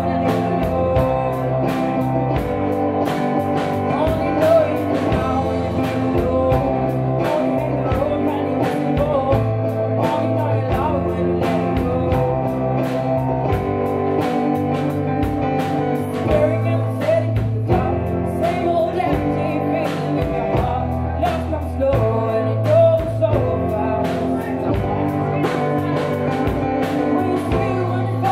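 Live band playing a song: a woman singing lead over keyboard and drums, with steady drum hits keeping the beat.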